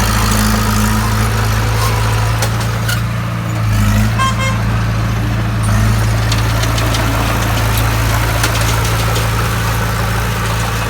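Bulldozer diesel engine running steadily at idle.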